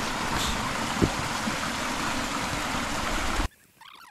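Mountain stream rushing over rocks, a steady hiss of running water with a single low knock about a second in. It cuts off abruptly about three and a half seconds in, leaving only faint sounds.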